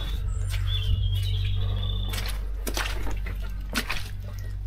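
Outdoor yard ambience: a steady low hum with a few faint knocks, and a bird's thin whistled call about a second in.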